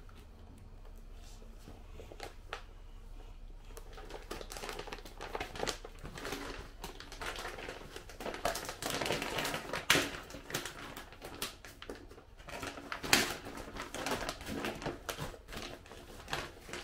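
Packaging crinkling and rustling as a T-Rex costume is unwrapped and handled. It starts a few seconds in and carries on as dense crackling, with a couple of louder sharp crackles partway through.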